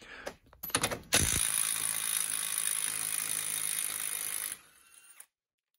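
A few clicks in the first second, then a Ridgid cordless impact wrench hammering for about three and a half seconds to undo a 36 mm rear CV axle nut, stopping abruptly.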